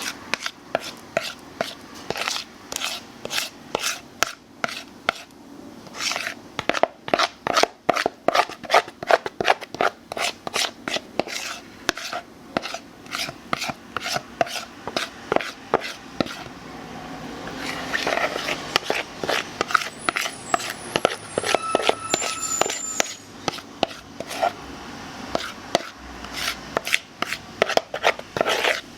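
Spatula or spoon scraping and knocking against a mixing bowl while thick pumpkin bread batter is moved into a loaf pan: a long run of sharp knocks and scrapes, a few a second.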